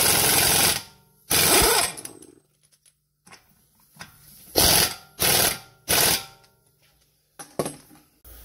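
Impact wrench hammering a front CV axle shaft nut tight: a run that stops under a second in, another short run, then three short bursts about halfway through as the nut seats.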